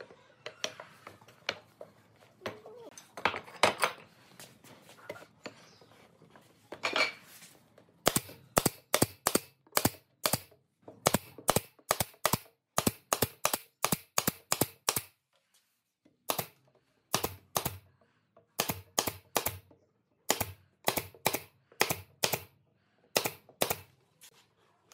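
Nail gun firing over and over, sharp shots about two a second, driving small nails through wooden slats into a frame, with a short pause midway. Softer knocks from handling the wood come before it.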